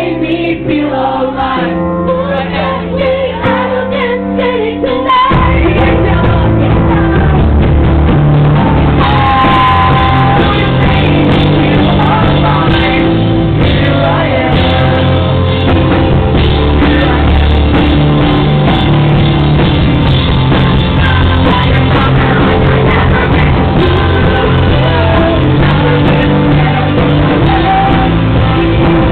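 Live rock band playing, with male and female singers on microphones. About five seconds in, the full band comes in much louder and stays loud.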